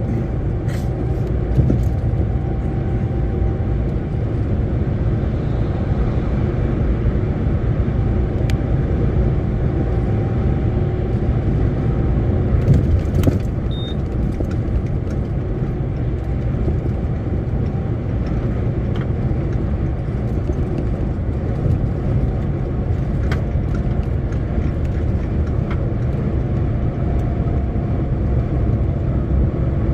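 Heavy truck on the move at steady speed, its engine and tyre noise a constant low rumble, with a few faint clicks.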